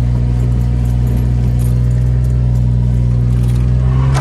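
Dodge Nitro's V6 engine, heard from inside the cabin, held at steady high revs under full throttle in an attempt to spin the rear tyres. The heavy SUV's engine is working hard without breaking the tyres loose. Right at the end the pitch begins to rise as the car pulls away.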